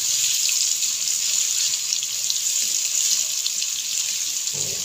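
Chopped onion and cumin seeds sizzling in hot oil in a non-stick kadhai as a spatula stirs them: a steady frying hiss with small crackles. A brief low knock comes near the end.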